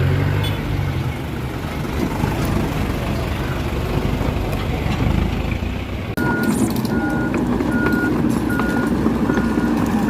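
Komatsu PC78 excavator's diesel engine running steadily. About six seconds in, the sound changes abruptly and a backup alarm starts, a short high beep repeating a little under twice a second.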